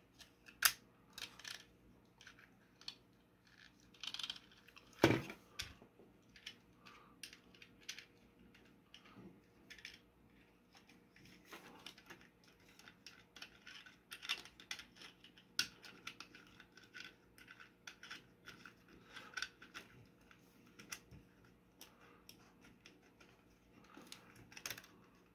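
Small 3D-printed plastic parts clicking and rattling as they are turned and pulled apart by hand while the drive assembly is unthreaded, with one sharper knock about five seconds in.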